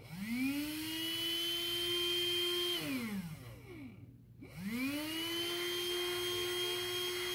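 The small can-type DC motor of an HL-107 handheld vacuum, run straight from an 8.4-volt lithium pack by touching a lead to its terminal. It spins up with a rising whine, runs steadily, winds down about three seconds in, then spins up again about a second later and runs on.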